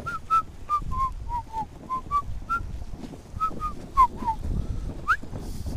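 A person whistling a quick tune of short notes that dip in pitch and climb again, ending on a rising slide, over footsteps on a dirt path and wind on the microphone.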